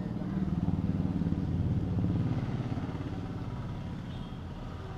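Motorcycle engine running close by, its low, fast pulse swelling over the first two seconds and then easing off.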